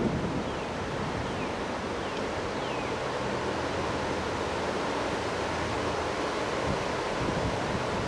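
Strong wind rushing through the branches of bare trees: a steady, ocean-like roar.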